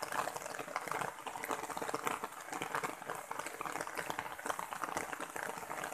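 Rain falling steadily: a dense, even patter of many small drops.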